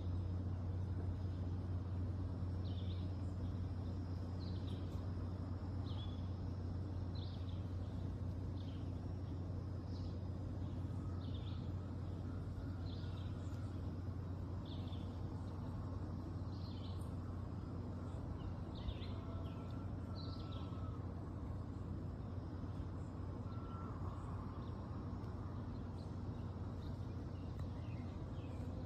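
Small birds chirping in short repeated calls, about one a second, over a steady low hum.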